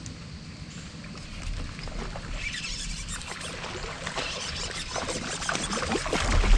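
Water splashing and sloshing at a kayak, with many small crackling splashes. It starts about a second and a half in and grows louder and busier toward the end.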